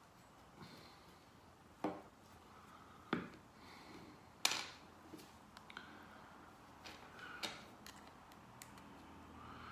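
Plastic pry tools clicking against the metal case of an Apple iPod Classic as it is prised open: three sharp clicks about two, three and four and a half seconds in, then a few fainter ticks.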